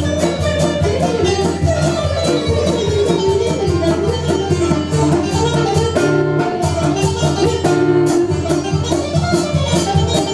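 Live traditional Arabic ensemble music: a qanun's rapid plucked runs, with guitar, bowed violin and a steady hand-drum beat. The low part of the beat drops out briefly about six seconds in, then returns.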